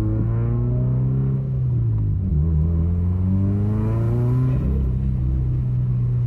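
2017 Subaru WRX's turbocharged flat-four engine pulling under acceleration. Its pitch climbs, dips a little over two seconds in, climbs again and falls off sharply at about four and a half seconds.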